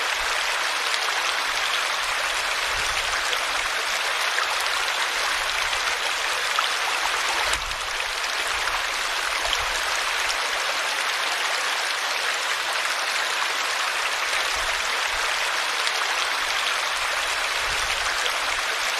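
River water rushing steadily: a continuous, even hiss of flowing water.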